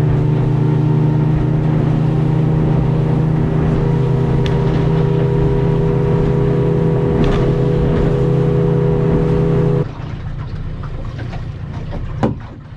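A 50 hp Mercury outboard running flat out under way with a steady, even drone. About ten seconds in the engine is cut back sharply and goes much quieter, and a sharp knock follows near the end.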